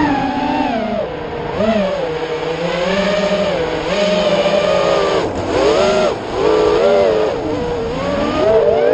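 FPV quadcopter's brushless motors whining, the pitch sliding up and down with the throttle: it falls at the start, swells in several quick rises through the middle and climbs again near the end.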